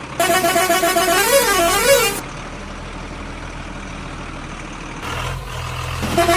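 A loud electronic horn-like tone, held and then wavering up and down in pitch twice, over a steady engine-like rumble; the horn tone starts again near the end.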